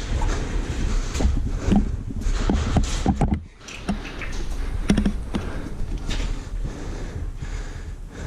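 Irregular clicks, knocks and thumps over a low rumble, typical of a player moving through an indoor airsoft field, with a brief lull about three and a half seconds in.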